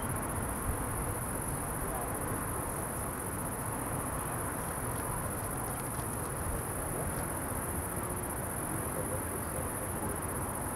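Crickets chirring steadily in a continuous high-pitched drone, over a low, even rumble.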